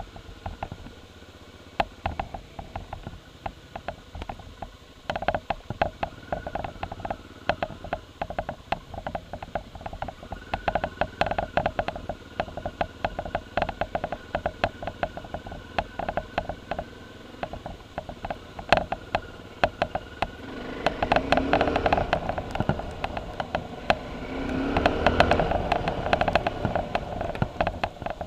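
Single-cylinder motorcycle engine running as the bike is ridden over dirt and grass, with many sharp clicks throughout. The engine gets louder twice near the end, as the throttle is opened.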